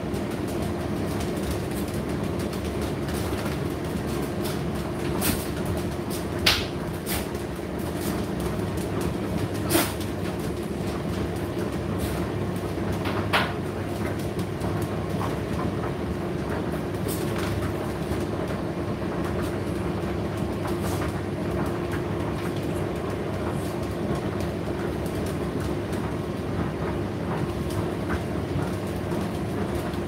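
Indesit IDC8T3 condenser tumble dryer running, its motor and fan giving a steady hum with a held tone as the drum turns. Occasional sharp clicks and knocks come from the load tumbling in the drum, mostly in the first half.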